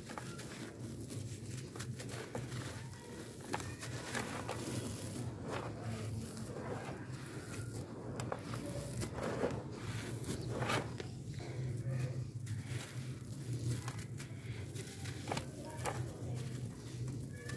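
Dry charcoal chunks crushed and crumbled by hand into dusty powder: a run of irregular gritty crunches and crackles, with a steady low hum underneath.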